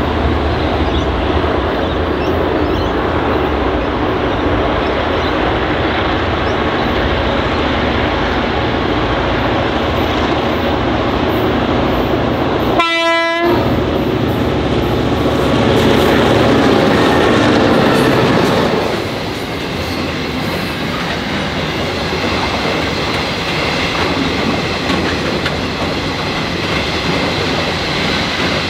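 Victorian Railways B class diesel-electric locomotives, with EMD 567 two-stroke engines, running steadily as they approach, with one short horn blast about halfway through. The engines are loudest as they pass, then give way to hopper wagons rolling by with a clickety-clack of wheels over the rail joints.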